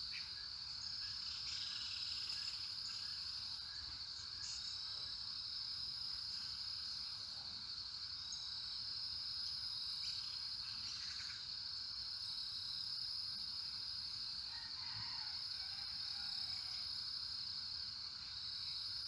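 Steady high-pitched insect chorus, an unbroken buzz with no pauses.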